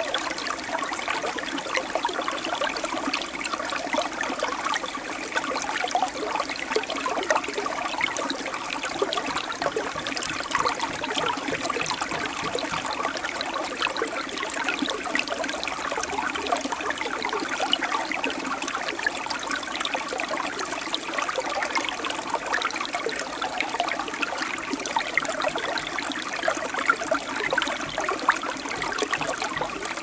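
Small forest stream running over stones in a little waterfall: steady splashing and trickling water.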